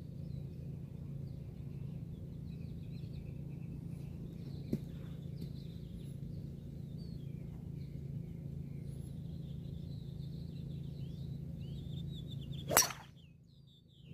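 Birds chirping over a steady low hum, with a light tap about five seconds in. Near the end comes one sharp crack: a driver striking a golf ball off the tee.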